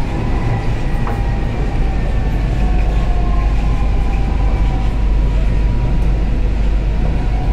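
Kochi Metro train running on its elevated track, heard from inside the carriage: a steady rumble with a faint whine over it.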